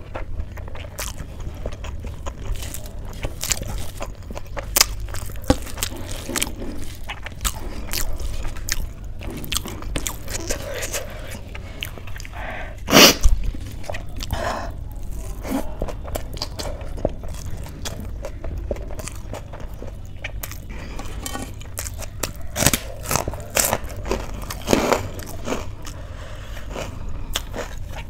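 Close-miked eating: chewing and crunchy bites, with many small mouth clicks and the squish of a hand mixing rice on a steel plate. One louder, sharp crunch about halfway through.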